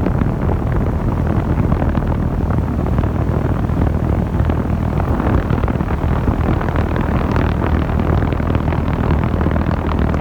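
The outdoor unit of a 2016 Amana heat pump running in cooling mode, its compressor and condenser fan giving a loud, steady rushing noise over a low hum. The unit is running normally.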